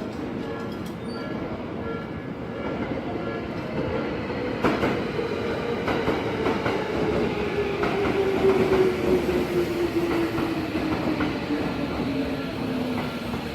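An electric commuter train passes over the level crossing at Takenotsuka Station, its wheels rumbling and clacking over the rails while its motors whine, the whine falling slowly in pitch. At the start a level-crossing bell rings in a regular on-off beat.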